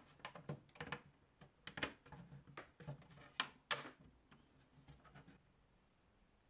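Faint, irregular plastic clicks and taps as a hand fits a 3D-printed PLA fan cover over the printer's side fan housing and presses it into place.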